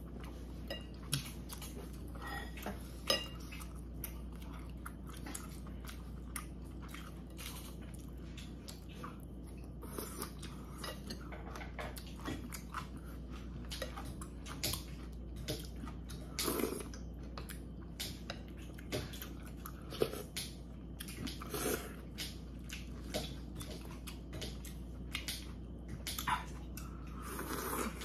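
Close-miked eating of kimchi dumpling rice cake soup: steady chewing with slurps, and a spoon and chopsticks clicking against the bowl.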